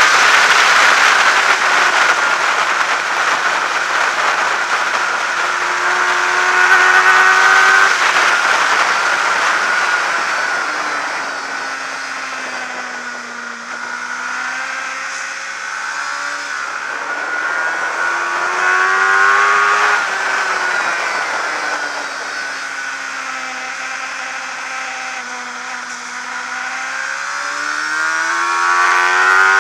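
Onboard sound of a 600 cc supersport racing motorcycle engine at race pace over steady wind rush. The revs climb through the gears, drop low about halfway through as the bike leans into a corner, climb again, dip once more, and rise hard near the end.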